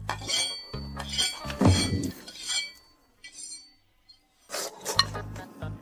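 Wooden chopsticks clinking against a porcelain rice bowl while eating, several short ringing clinks with a louder knock about a second and a half in. Under it runs a bass-heavy music beat that drops out for over a second and comes back near the end.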